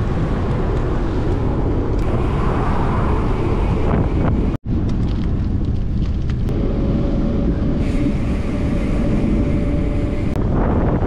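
Wind buffeting the microphone of a camera on a bicycle riding along a road: a loud, steady low rumble. It cuts out for a moment a little under halfway, and a steady hum runs through much of the second half.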